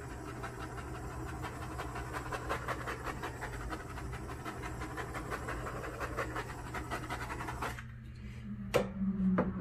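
Handheld butane torch flame hissing steadily with a fluttering crackle as it is passed over wet acrylic paint to raise cells; the flame cuts off suddenly about eight seconds in. Two sharp knocks follow near the end.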